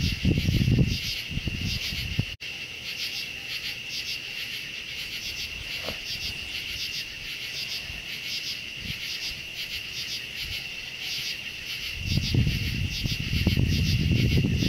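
Night insect chorus of crickets and katydids: a steady high trill with rhythmic pulsing chirps above it. Low rumbling on the microphone at the very start and again in the last few seconds.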